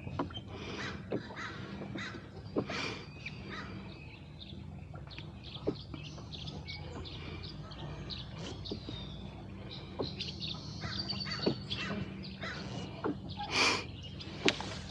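Birds calling and chirping in short scattered calls, over a low steady hum.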